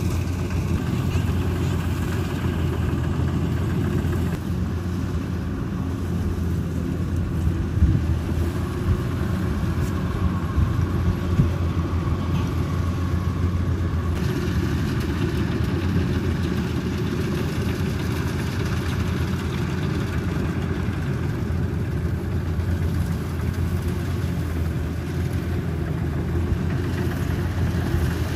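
Rice combine harvester running steadily in the field, a constant low engine drone.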